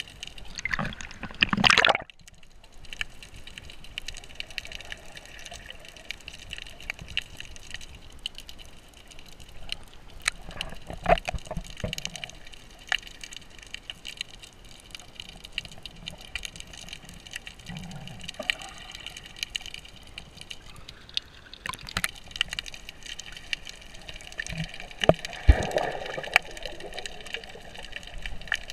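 Sea water sloshing and bubbling around an action camera held just under the surface while snorkeling, with scattered clicks and knocks. A loud rush of water comes about a second in and cuts off abruptly, and a smaller swell of water noise comes near the end.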